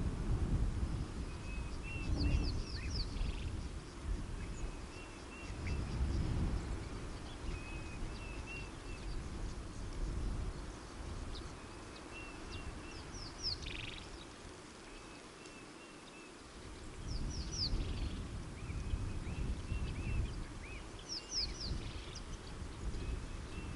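Birds calling: short chirping phrases repeated every couple of seconds, with a few quick, high descending trills. Underneath is a low rumbling background noise that rises and falls.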